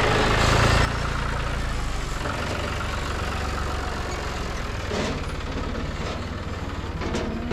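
Engine idling steadily, a little louder for the first second before settling.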